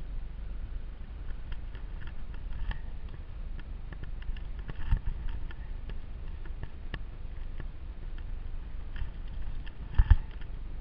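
Footsteps crunching and clicking on a loose, stony mountain trail, irregular small taps over a steady low rumble, with a heavier knock about five seconds in and a loud double knock near the end.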